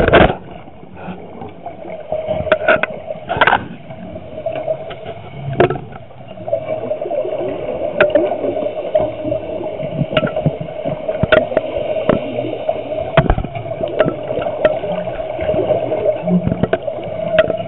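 Underwater sound picked up through a compact camera's waterproof housing: a steady hum with scattered clicks and knocks from the housing being handled, and a couple of short rushes of noise, about two and a half and three and a half seconds in.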